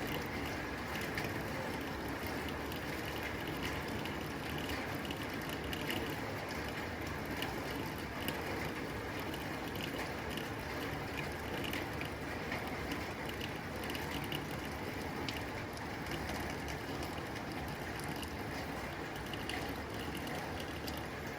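Rain falling steadily on a tin roof: an even hiss of rain with many sharp ticks of individual drops striking the metal.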